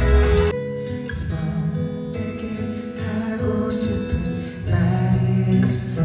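Music: a man singing into a microphone over acoustic guitar accompaniment.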